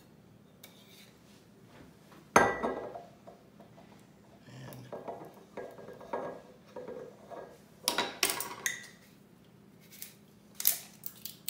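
Metal bottle opener clinking and scraping against the crown cap of a glass sauce bottle as the cap is pried off, in several goes. A single sharp knock about two seconds in is the loudest sound, with clusters of clicks later on.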